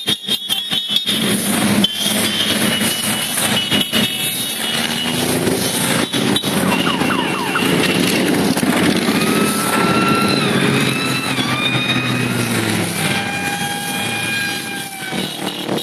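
A column of motorcycles riding past one after another, many engines running together. In the second half, high tones glide and step downward over the engine noise.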